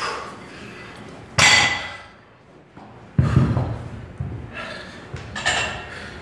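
Sharp, forceful exhales of a lifter straining through shoulder-workout reps, with a heavy thud about three seconds in.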